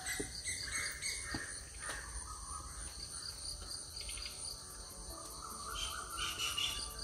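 Insects trilling steadily in high, evenly repeating pulses, with a few short bird chirps.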